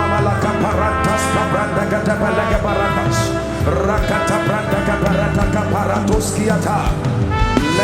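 Live worship band music with brass horns playing long, held notes over a steady accompaniment.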